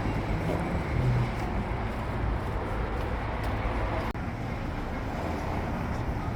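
Outdoor city ambience: a steady hum of traffic with no distinct events.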